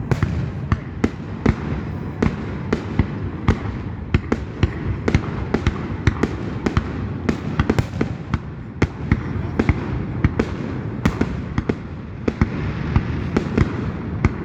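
Aerial fireworks going off in quick succession: many sharp bangs, about two or three a second, over a continuous low rumble of the show.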